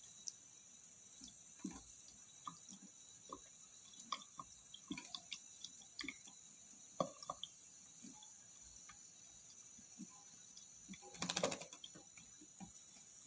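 Irregular drips and small splashes of water, with a brief louder flurry of splashing near the end.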